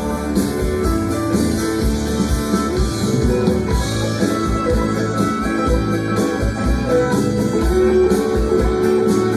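Rock band playing an instrumental passage without singing: guitar over bass and a steady drum beat.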